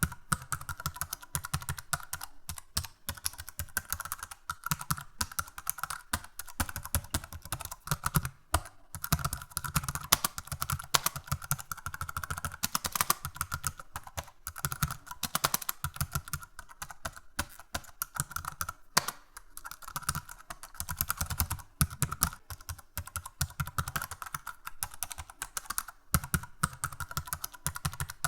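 Computer keyboard being typed on continuously, a fast, irregular stream of key clicks with a few brief pauses.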